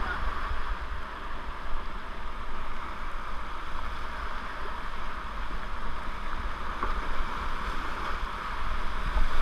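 Whitewater rapids rushing around a kayak as it runs them, heard close up with spray hitting the camera: a steady rush of water with a low rumble underneath.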